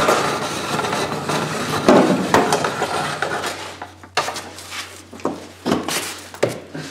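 A Wonder Winder extension-cord winder being handled: rubbing and rattling of its plastic head and the cord for the first few seconds, then several sharp clicks and knocks.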